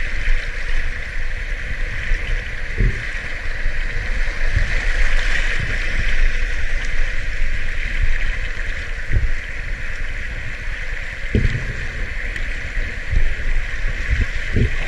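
River rapids rushing and splashing right at the waterline, a steady loud wash of water with a few low thuds as waves slap against the camera.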